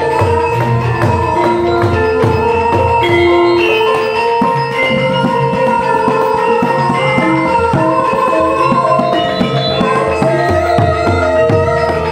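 Javanese gamelan ensemble playing in pelog barang: bronze metallophones and kettle gongs ring out a melody over kendang hand drums beating a busy pattern.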